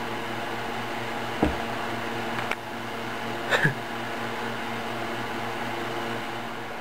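A steady low electrical or motor hum, with a few brief sharp knocks and clicks over it, the loudest a quick double knock about three and a half seconds in.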